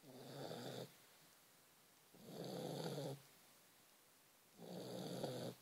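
Vizsla dog snoring: three snores about two seconds apart, each lasting about a second.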